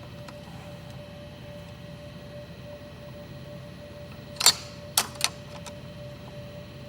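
Three sharp clacks within under a second, the first slightly drawn out and the loudest, as tools or parts are handled on the embroidery machine head, over a steady low hum with a faint high tone.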